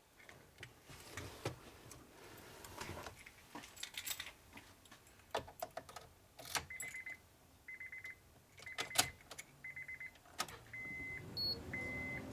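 Keys rattling and clicking against the car's interior, then the Honda Step WGN's key-left-in-ignition warning beeping about once a second from a little past halfway. The beep is high-pitched: buzzy at first, then clean tones.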